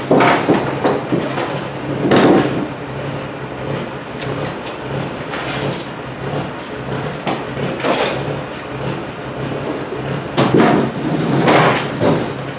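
An engine running steadily, with intermittent metal clanks and knocks from heavy rigging work as a machine is moved, the loudest near the start, about two seconds in, about eight seconds in and in a cluster near the end.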